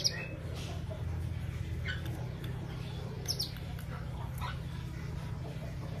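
Young F1 × AF cross canary giving a few short, high, downward-sliding chirps a second or so apart, one of them a quick double about three seconds in, over a steady low hum.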